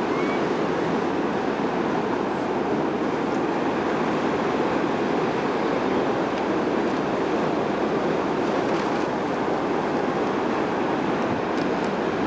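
Steady, unbroken noise of beach surf and wind on the microphone, even in level throughout.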